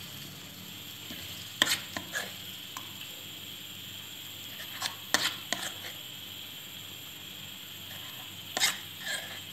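A metal spoon scraping and knocking against a pan and a small steel bowl as thick chutney is scooped out. The clinks and taps come in three short clusters: about a second and a half in, around five seconds in, and near the end, over a steady background hiss.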